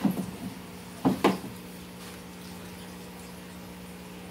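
Liquid sloshing in a plastic barrel as a long wooden pole stirs the solution for rehydrating dried furs, with a couple of louder splashes about a second in. A steady low hum runs underneath.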